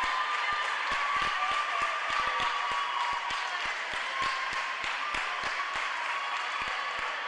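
Spectators applauding: a steady clatter of many hand claps.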